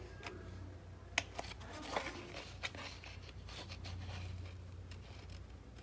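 Quiet handling of a heavy gel-printed paper page as it is lifted and turned over, with a few light clicks and rustles over a steady low hum.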